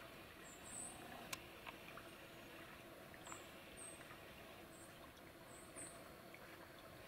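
Near silence: faint outdoor ambience with a few short, very high, thin chirps scattered through it and one sharp click about a second in.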